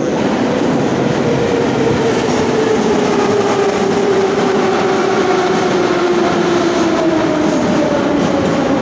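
Moscow metro train pulling into the station and running past along the platform, a loud steady rumble of wheels on rail. Its motor whine falls slowly in pitch as the train slows.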